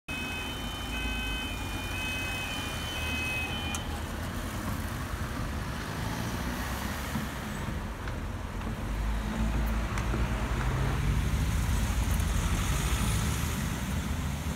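Road traffic waiting at and moving off from a canal swing bridge: car engines running, one rising as it pulls away about ten seconds in. For the first four seconds an electronic warning tone alternating between two pitches sounds over it, then stops.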